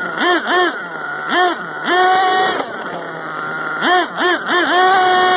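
Small two-stroke engine of a gas-powered RC monster truck, heard from on board, revving in quick blips of throttle that rise and fall in pitch, with a couple of longer steady holds. Near the end it is held at a high, steady pitch.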